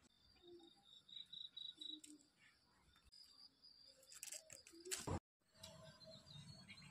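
Faint outdoor ambience with a few high, repeated bird chirps, and one short, sharp click about five seconds in.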